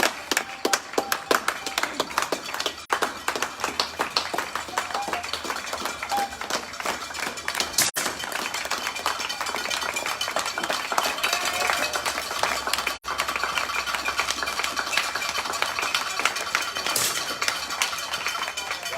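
Spectators clapping rapidly, which eases after a few seconds into a steady crowd murmur with faint voices and scattered clinks and taps.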